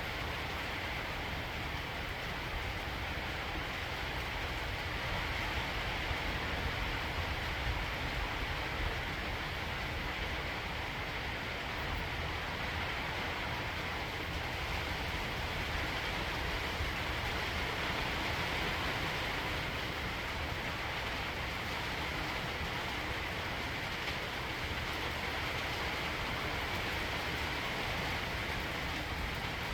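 Heavy rain falling steadily in a thunderstorm: an even hiss with a low rumble underneath.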